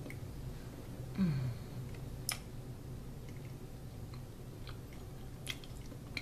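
People chewing soft, chocolate-cream-filled bread pastries, with a few small sharp mouth clicks. A short low hum that falls in pitch comes about a second in.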